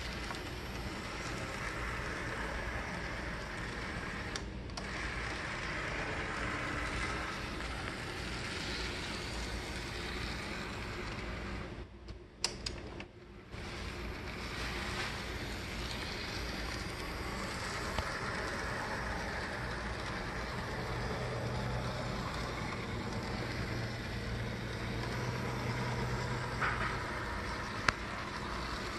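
American Z Line Northern Pacific RS3 Z-scale model diesel locomotive running on the track: a steady whir of its small electric motor and wheels on the rails that swells and fades as it passes. It drops out briefly with a couple of clicks about twelve seconds in, and a steady low hum joins it in the last part.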